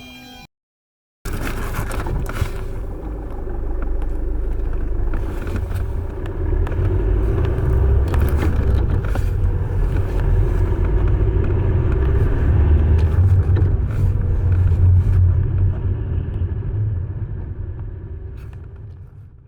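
Car engine running with a low rumble and irregular rattling clicks, the rattle of a worn dual-mass flywheel. It starts about a second in and fades out near the end.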